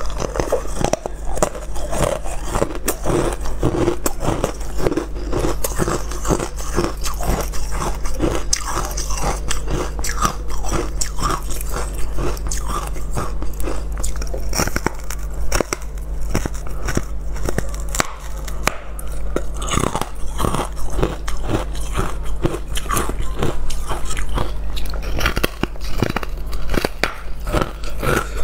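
Carbonated ice being bitten and chewed close to a clip-on microphone: a dense, continuous run of crisp crunches and crackles. A steady low hum lies underneath.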